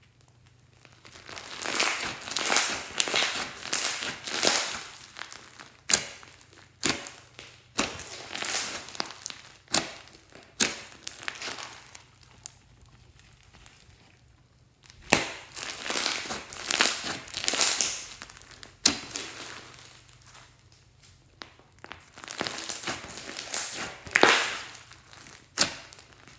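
Glossy slime being squished and stretched by hand, giving bursts of sticky crackling with sharp clicking pops. The bursts come and go, with a lull about halfway through.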